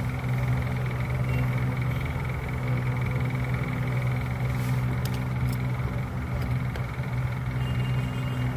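Steady low mechanical hum, with a few faint clicks around the middle.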